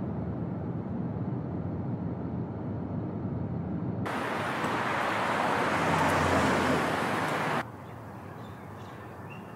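Road noise inside a moving Chevrolet sedan, a steady low rumble. About four seconds in it swells into a louder rushing noise, which cuts off suddenly near the end. A quieter outdoor ambience with a few faint bird chirps follows.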